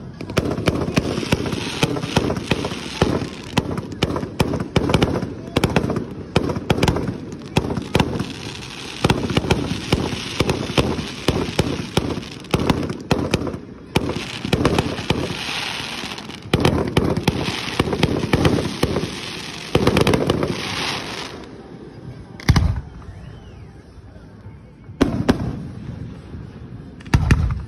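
Fireworks display: a rapid barrage of shell launches and bursts with crackling, packed close together for about twenty seconds. It then thins out to a few single loud bangs with quieter gaps between them.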